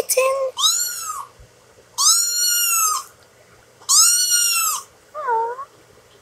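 Ginger kitten meowing: a string of high-pitched meows, each rising and falling and lasting about a second, with short pauses between them, then a shorter, fainter call near the end.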